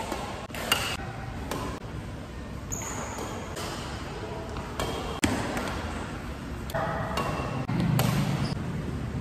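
Badminton rackets hitting a shuttlecock: irregular sharp smacks, several in a few seconds, as a rally is played.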